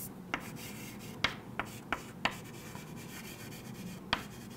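Chalk writing on a chalkboard: sharp taps as the chalk strikes the board, about five in the first two and a half seconds and one more near the end, with faint scraping between strokes.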